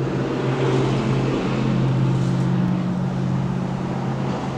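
A motor vehicle's engine running with a low, steady hum that swells slightly in the middle.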